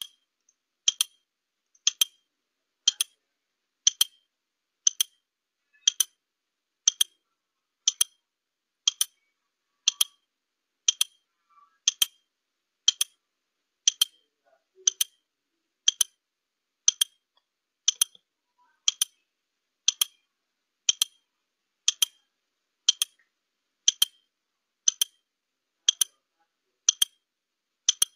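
Countdown-timer clock ticking steadily, one sharp tick per second, marking a 30-second answer time.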